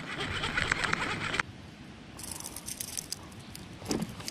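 Clicking and rustling as a baitcasting fishing reel and rod are handled. A dense clatter of small clicks stops suddenly about a third of the way in, followed by a run of fast, light ticks and a single knock near the end.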